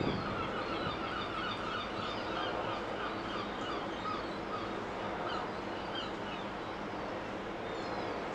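Birds chirping in quick runs over a steady low rumble, the calls thinning out after about five seconds.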